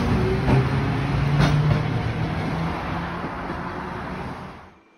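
Tosaden streetcar No. 802, an older tram with nose-suspended traction motors, passing close and rolling away: a rumble with a few clicks of wheels over rail joints and a low motor hum, fading over a few seconds and then cutting off suddenly near the end.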